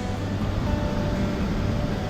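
Background music with long held notes over a steady rushing noise.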